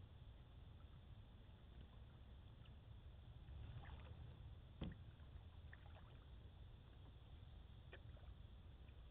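Quiet canoe paddling on calm water: faint water sounds and small ticks over a low steady rumble, with one sharp knock about five seconds in.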